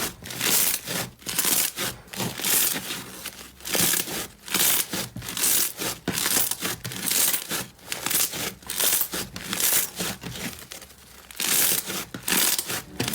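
Slime being squeezed and pressed by hand, giving repeated crinkly, crackling squelches, one or two a second, with a short quieter pause near the end.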